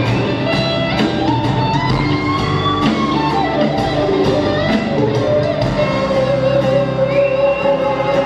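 Live band playing, led by an electric guitar solo of long, sliding notes over a steady drum beat.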